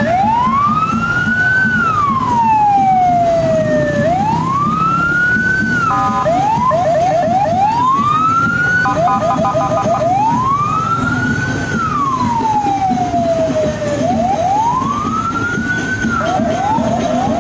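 Police car siren wailing, each rise and fall taking about four seconds. Short runs of rapid yelping chirps and two brief steady horn-like blasts break in between the wails.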